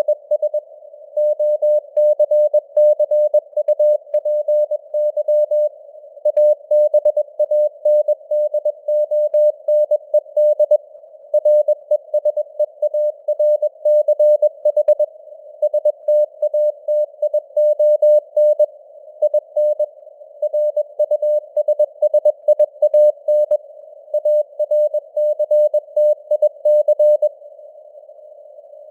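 Morse code (CW) sent at 21 words per minute: a single-pitched beep keyed rapidly on and off in dots and dashes, over a narrow band of simulated radio hiss, with the signal strength fading up and down (QSB). There are longer pauses between words now and then.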